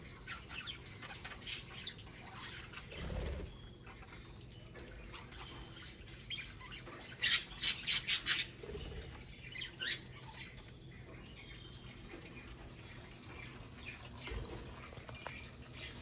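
Pet budgerigars chirping and chattering in short high calls, with a quick run of loud chirps about halfway through.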